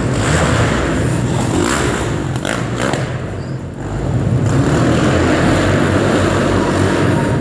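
Sport quad bike (ATV) engine running hard on a dirt track. The revs drop about three seconds in and pick up again a second later.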